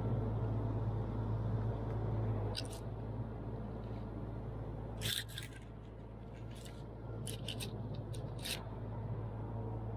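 A steady, low engine hum runs underneath. From about two and a half seconds in come a handful of short, sharp clicks and scrapes, several of them close together around the middle.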